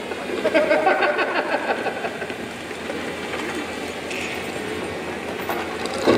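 Large crowd of spectators chattering, a steady mass of overlapping voices, with a sharp snap near the end.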